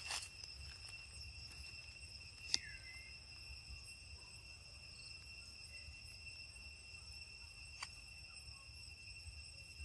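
Steady high-pitched insect trill from the forest, like crickets or cicadas, running on two steady tones. A few sharp clicks cut across it, the loudest about two and a half seconds in and another near the end.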